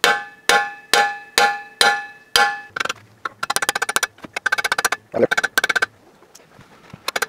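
A steel mini sledgehammer strikes the end of a threaded-rod bushing installer, driving a balance-shaft-delete bushing into its bore in an aluminium engine block. There are about six sharp, ringing blows half a second apart, then quicker runs of light taps from about three seconds in.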